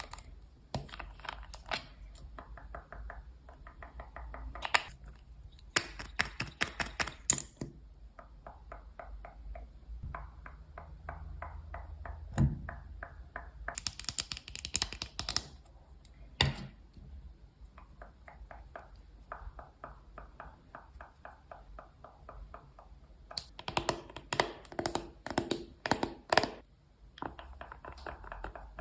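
Hands handling paper craft pieces: a near-continuous run of quick light taps and clicks, with a few louder, denser flurries.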